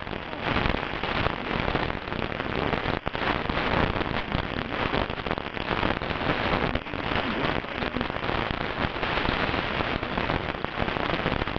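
Radio static: a dense crackling hiss that holds steady, with a brief dip about three seconds in.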